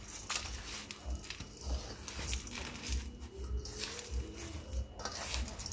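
A silicone spatula stirs and folds thick oatmeal cookie dough in a stainless steel bowl by hand. The strokes make repeated squishing and scraping sounds, with a dull low knock about once or twice a second as the dough is worked.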